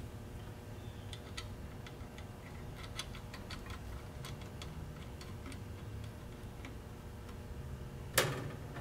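Small metal washers and a nut clicking faintly as they are handled and threaded by hand onto a wiring terminal stud, with one louder clack near the end.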